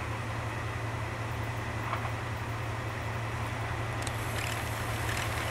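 Diesel train approaching: a steady low engine drone that grows slightly louder, with faint clicks from the wheels on the rails starting about four seconds in.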